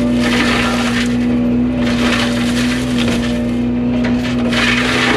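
Fecon forestry mulcher head on a Yanmar excavator chewing into brush in repeated crunching, shredding bursts, over the steady hum of the excavator's engine and hydraulics.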